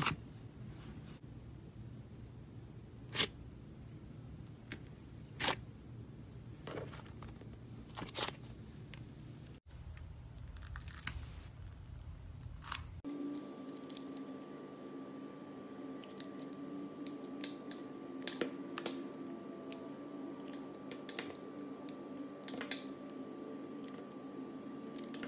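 Hands pressing and squishing thick slime, with scattered sharp pops and clicks. Later, a bar of soap being sliced with a blade: crisp crunching and scraping cuts over a faint steady hum.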